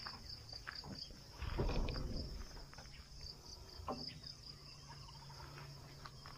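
Insects chirring in a steady high, evenly pulsing trill across a rice paddy. A brief low rumble comes about a second and a half in.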